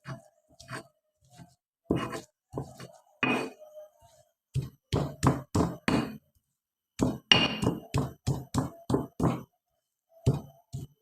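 Garlic cloves being smashed flat with a series of hard knocking strikes: a few scattered blows, then a quick run of about five, a short pause, and another run of about seven.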